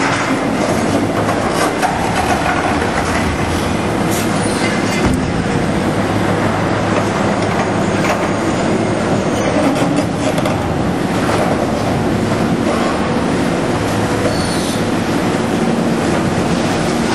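Heavy demolition machinery at work: a diesel engine running steadily under load, with irregular crunching, knocking and scraping as concrete and steel are broken apart.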